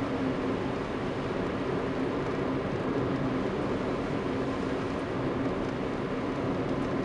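Steady running noise inside a car's cabin while driving on a paved road: engine hum under an even rush of tyre and road noise, unchanging throughout.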